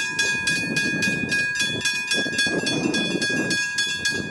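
Westinghouse railway level-crossing bell ringing steadily, about four strikes a second, each strike leaving a ringing tone. A low rumble swells and fades about two seconds in.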